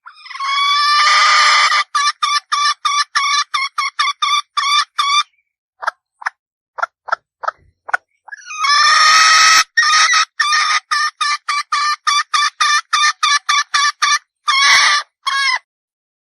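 Red junglefowl hen calling: twice, a long drawn-out squawk runs straight into a fast string of short clucks, about five a second.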